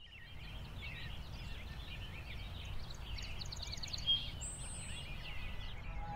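Outdoor park ambience: birds chirping and twittering all through, with a brief high whistled call about four and a half seconds in, over a steady low rumble.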